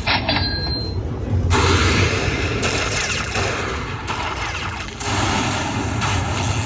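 Lightning Cash video slot machine playing its game sound effects: heavy booming, rumbling effects that change every second or so, over casino din.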